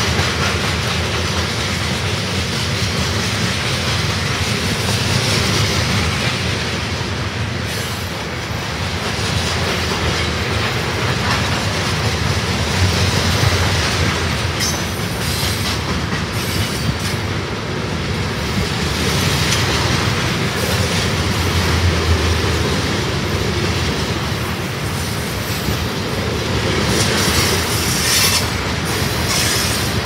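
Freight cars of an empty rock train rolling past steadily, a continuous rumble of steel wheels on the rails.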